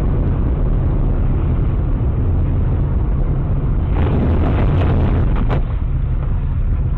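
Loud, steady low rumble of a moving car picked up by a dashcam microphone inside the car, heavy and distorted, with a few sharp clicks and rattles about four to five and a half seconds in.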